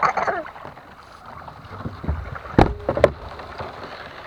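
Kayak being paddled, with a steady wash of water and wind noise and two sharp knocks about half a second apart a little past the middle.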